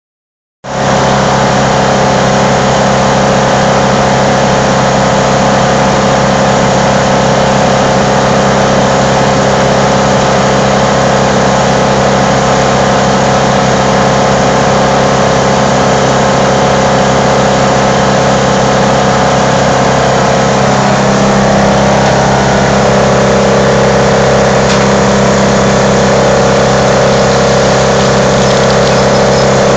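Wood chipper's engine running steadily at speed, a loud even drone. About two-thirds of the way through its note dips slightly and deepens, then holds there.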